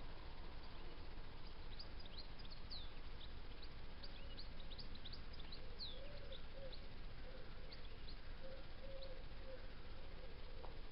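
Birds chirping outdoors: many quick, high chirps, and from about four seconds in a lower call repeated in short notes, over a steady low background noise.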